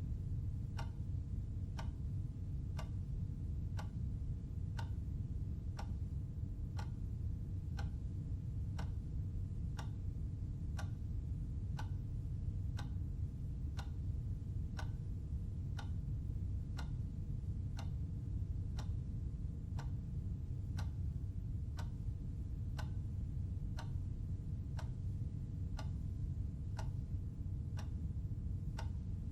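Clock ticking steadily, an even tick about once a second, over a low steady hum.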